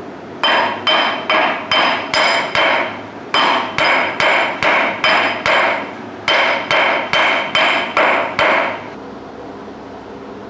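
Hammer striking a coin that is being shaped into a ring, each blow ringing metallically, in three runs of six or seven blows about two and a half a second with short pauses between. The blows stop about nine seconds in, leaving a steady low hum.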